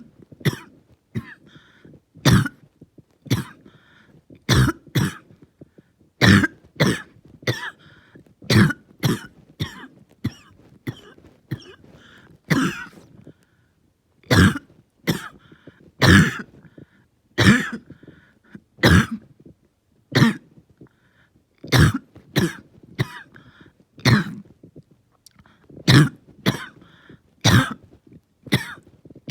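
A person in a long, harsh coughing fit: loud coughs come one after another, about one a second and often in quick pairs, with fainter sounds between them.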